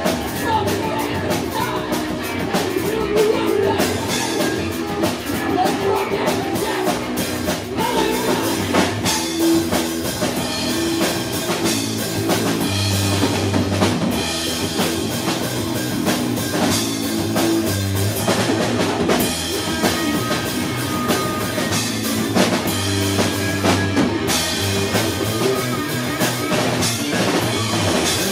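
Live rock band playing loud: a full drum kit with bass drum and cymbal hits driving under electric guitars.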